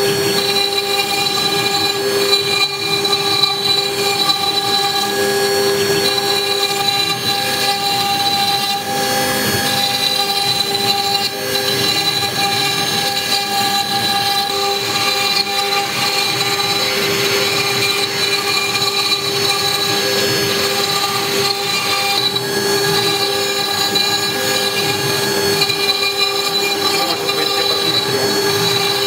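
CNC-6090 router spindle whining steadily at one high pitch as its small cutter mills sandstone under a stream of coolant, with the rasp of the cutter in the stone underneath.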